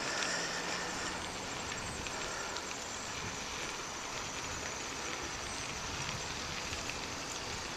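Steady rush of wind and road noise while riding a bicycle along an asphalt road, with wind on the microphone.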